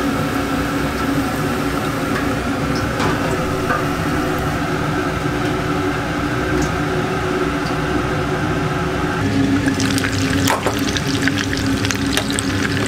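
Hot cooking oil sizzling over a steady hum, turning to dense crackling from about nine and a half seconds in, where a hamburger steak patty is frying in a shallow pan of oil.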